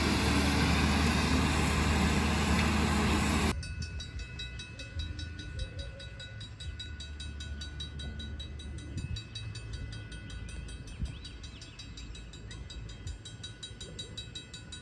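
Railroad grade-crossing bell ringing steadily with rapid, evenly spaced strokes, signalling an approaching trolley. Before it, a loud steady rush beside a standing steam locomotive cuts off abruptly about three and a half seconds in.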